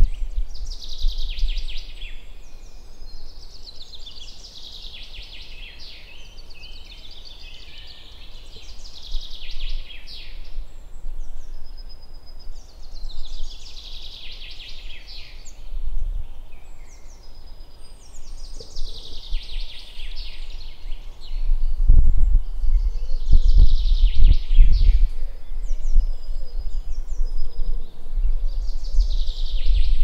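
A songbird singing the same short, descending trilled phrase again and again, every three to four seconds. A low, uneven rumble joins in about two-thirds of the way through.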